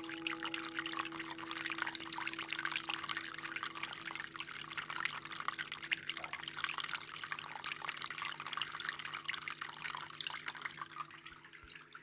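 Water running from a bamboo spout and splashing onto a bamboo trough and into an aquarium: a steady trickling splash, fading out near the end.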